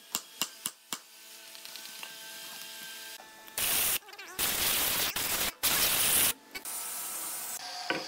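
A wood chisel clicking against the wood a few times as it pares out a mortise in a hardwood post, then three loud bursts of hissing compressed air from a blow gun, clearing the chips out of the mortise.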